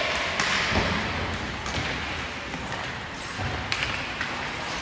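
Ice hockey play on a rink: a steady hiss of skates scraping the ice, broken by a few sharp knocks of sticks, puck and boards.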